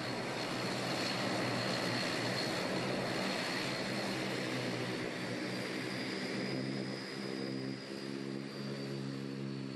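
Airliner engines running on the ground: a steady roar with a high whine, and a low hum with even overtones that grows stronger about halfway through.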